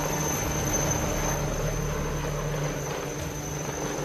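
HAL Light Utility Helicopter, a single-engine turbine helicopter, lifting off and climbing with a steady engine and rotor noise.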